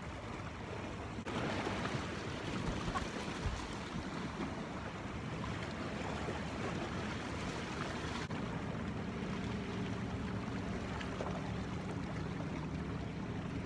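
Sea waves washing against the rocks of a breakwater, a steady surging wash that grows louder about a second in. A low steady drone joins about two-thirds of the way through.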